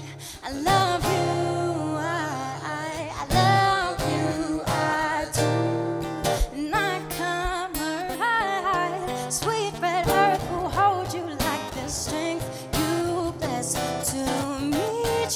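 Acoustic guitar playing chords, with a woman singing a melody over it.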